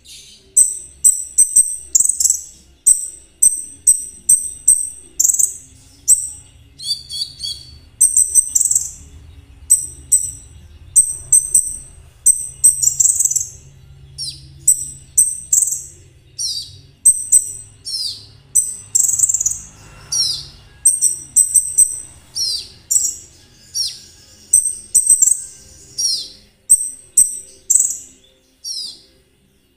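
Konin trotol songbird singing a fast, high, chattering song, short trilled phrases repeated about once or twice a second, with quick downward-sweeping notes mixed in from about the middle on.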